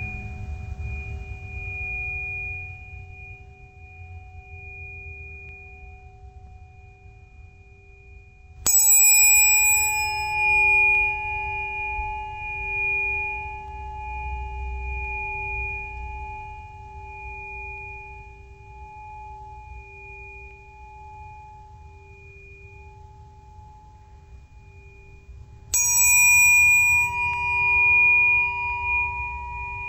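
Bells struck twice, about nine seconds in and again near the end. Each strike is a bright clang that quickly fades into long ringing tones that waver slowly, over the still-ringing tones of earlier strikes and a low hum.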